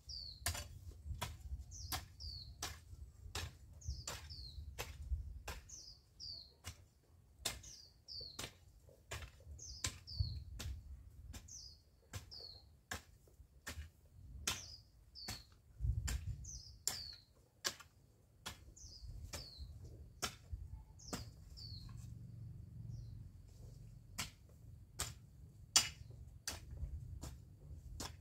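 A hoe chopping and scraping dry soil in quick, regular strokes, about two a second. A small bird repeats a short, high, falling two-note call every couple of seconds until about two-thirds of the way through.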